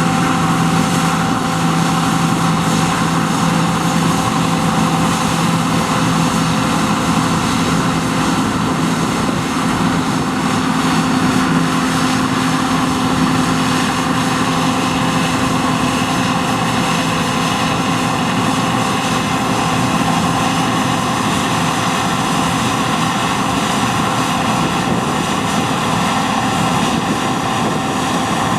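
John Deere T560 combine harvester running steadily, a continuous engine and machinery drone with several held hum tones.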